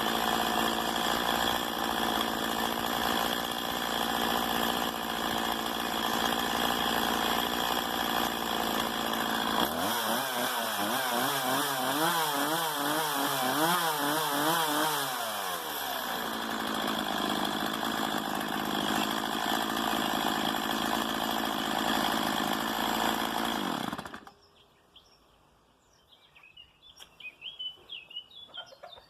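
Stihl MS 170 chainsaw's small two-stroke engine idling, then revved up and down repeatedly for several seconds before it settles back to idle. About 24 seconds in it cuts off suddenly, and birds chirp afterwards.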